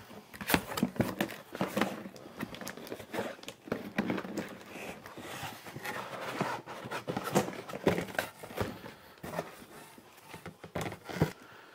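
Cardboard packaging being opened and handled: irregular rustling and scraping of box flaps and product boxes, with sharp taps scattered throughout.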